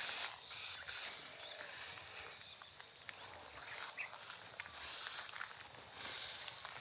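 Insects calling: a steady high buzz with short pulsed chirps repeating every second or so. Under them, light rustling and crackling of rice plants as someone moves through them.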